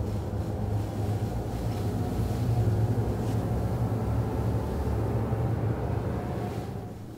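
Low rumbling drone from a horror film's sound design. It swells slightly, then fades away near the end.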